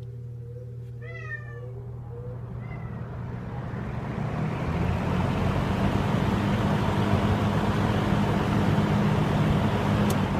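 1971 Kmart (Lakewood) Model P-23 20-inch box fan starting up: in the first two seconds the motor gives a short, wavering whine, the Lakewood 'startup sound', subtle on this one. Then the rush of air builds over a few seconds as the blades come up to speed, and the fan runs steadily.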